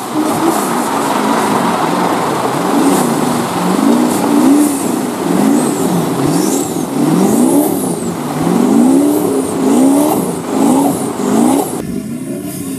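Off-road 4x4 engine revved hard again and again, its pitch rising and falling about once a second as the vehicle is driven through a river, over the steady rush of spray thrown up by the tyres.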